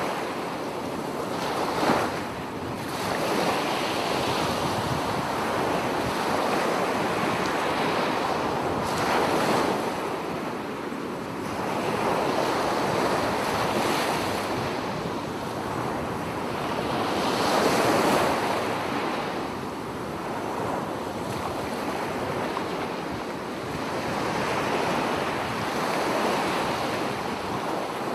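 Ocean surf: waves washing in, swelling and fading every few seconds.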